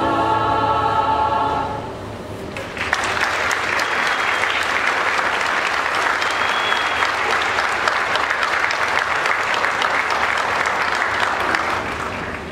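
A mixed choir's held sung chord ends about two seconds in. After a short pause an audience breaks into applause, which goes on and tails off near the end.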